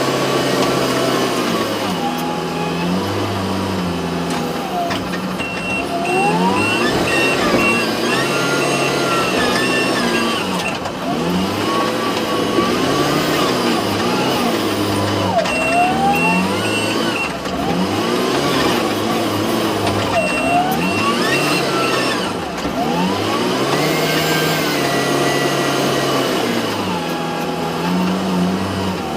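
XCMG backhoe loader's diesel engine revving up and falling back over and over as the machine works, with a reversing alarm beeping in three short runs.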